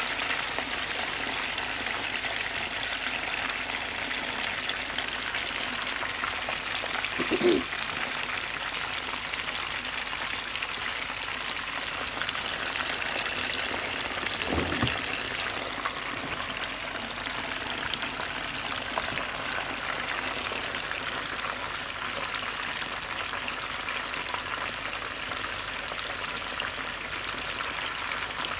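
Masala-coated fish fillets shallow-frying in hot oil in a pan: a steady sizzle, with two brief louder sounds about seven and fifteen seconds in.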